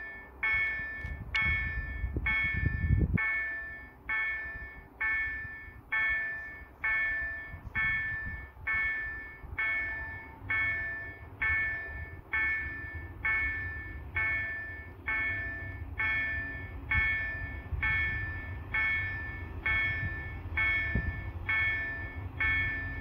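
Level-crossing warning bell ringing in a steady rhythm, about three strikes every two seconds, each ring dying away: the crossing signal warning that a train is approaching. A low rumble runs underneath.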